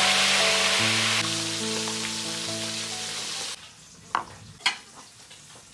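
Marinated milkfish (bangus) frying in hot oil in a wok, a loud steady sizzle that cuts off suddenly about three and a half seconds in. A few faint clicks follow.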